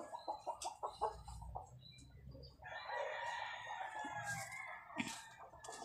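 A rooster crowing once, one long call of about two seconds in the middle. Before it, a quick run of rustles and clicks from leaves being handled close to the microphone.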